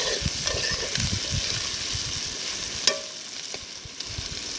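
Beef strips and onion sizzling in a metal pot while a metal spoon stirs and scrapes through them, with one sharp click about three seconds in.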